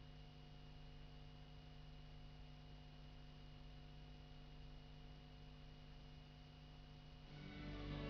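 Near silence with a faint steady electrical hum; soft music begins to fade in near the end.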